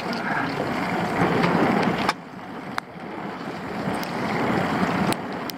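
Choppy waves sloshing and slapping against a freighter canoe's hull, with wind buffeting the microphone; the noise swells and drops back unevenly, with a few sharp clicks.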